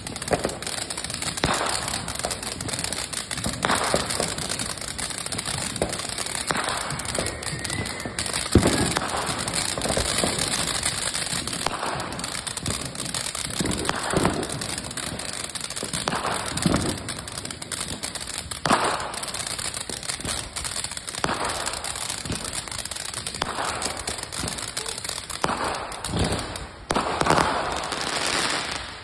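Ground fountain firework spraying sparks: a steady hiss with crackling and irregular louder pops every second or two.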